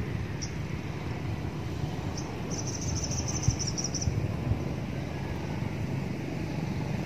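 Outdoor ambience: a steady low rumble under a few short, high bird chirps, with a quick run of high twittering about halfway through and a couple of soft knocks.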